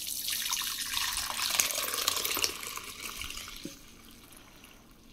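Lukewarm milk mixed with yogurt starter poured from a pot into a glass bowl: a steady splashing stream that thins and trails off after about three seconds.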